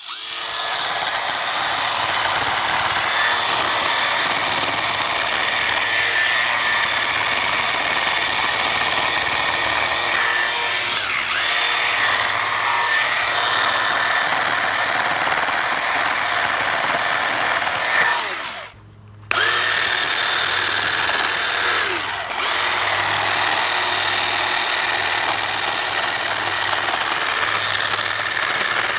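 Cordless battery-powered pole hedge trimmer running steadily while cutting back brush. It has a high electric whine. It cuts out for about a second a little past halfway, then starts again.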